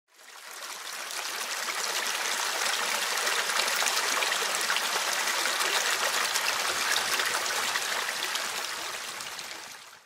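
Shallow mountain stream running over rocks: a steady rush of water that fades in over the first second and fades out at the end.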